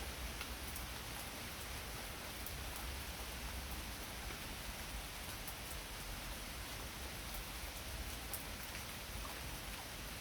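Heavy rain pouring steadily, a dense even hiss of falling drops with fine ticks of drops striking close by.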